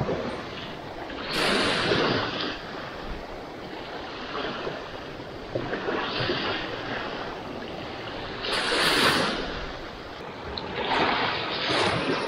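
Small waves washing up on a sandy beach: four swells of surf a few seconds apart over a steady hiss.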